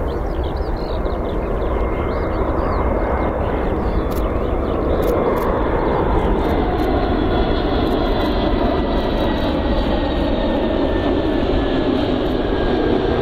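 Airbus A321neo's Pratt & Whitney PW1100G geared turbofans at approach power as the jet comes in low on final approach: a steady engine rumble that grows a little louder, with a faint high whine that slowly falls in pitch.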